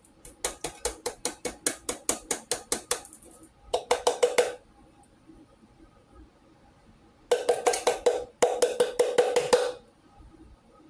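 An opened tin can of condensed chicken noodle soup shaken and knocked while held open end down over a metal saucepan to get the thick soup out. It starts as a quick, even run of metal knocks, about six a second, then comes in three harder bursts of rattling knocks with a metallic ring.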